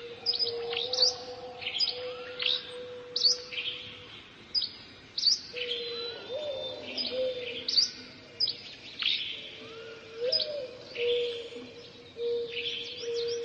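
Dawn chorus: several birds singing at once, with many quick, sharp chirps and downward-sweeping notes overlapping, over a steady low tone that breaks off now and then.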